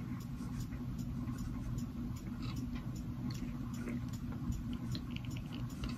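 Quiet room tone: a steady low hum with faint, regular ticking about four times a second.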